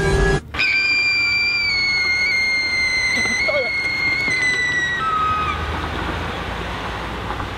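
A high, steady whistle-like tone that steps slightly down in pitch a couple of times and stops about five seconds in, followed by a low rumbling hiss.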